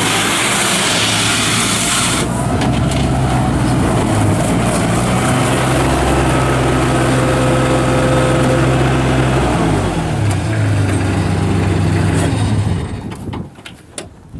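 Kubota diesel engine of a 1986 Bobcat 643 skid steer loader running steadily, slowing down about ten seconds in, then shutting off near the end.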